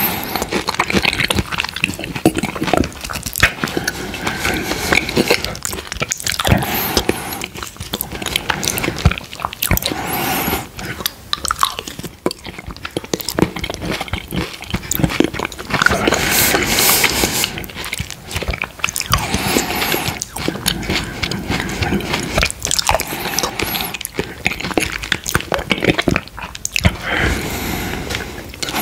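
Close-miked eating sounds: a man chewing spoonfuls of mango quark dessert with coconut flakes, a continuous run of wet mouth clicks and smacks.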